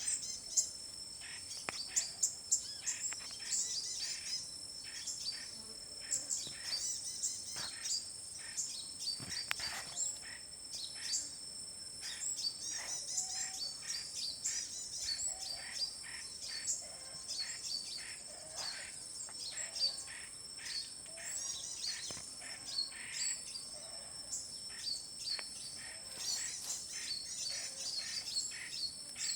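Many forest birds chirping and calling, with short calls and quick trills overlapping throughout. Underneath runs a steady, high-pitched insect drone.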